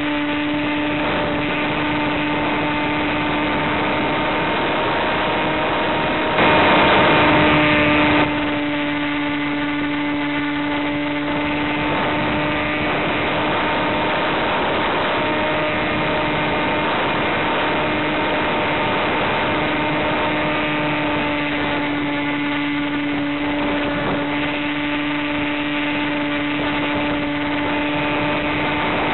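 Electric motor and propeller of an Easy Star FPV plane running at steady cruise throttle, heard from on board as a constant whine over rushing noise. A louder rush of noise swells for about two seconds starting about six seconds in.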